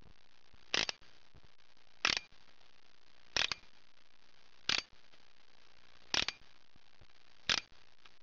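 Six sharp mechanical clicks at an even pace, about one every 1.3 seconds, each a quick snap or two, over a faint steady hiss.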